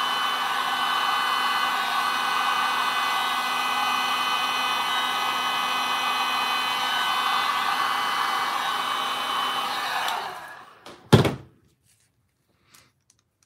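Electric heat gun blowing steadily, its fan motor running with a few steady whine tones. About ten seconds in it is switched off and winds down, and then comes a single loud thunk as the gun is put down.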